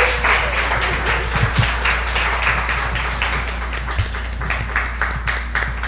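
Live audience applauding, the clapping thinning out toward the end, over a steady low hum.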